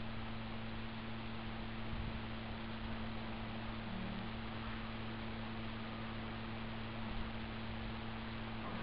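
Steady low electrical hum with an even background hiss; no distinct knock or bang.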